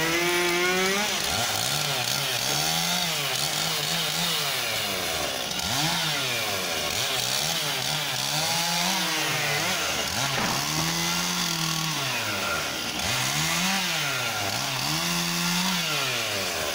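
Husqvarna 540 XP chainsaw cutting tree limbs. It is throttled up and down over and over, and each burst holds for a second or two before dropping back.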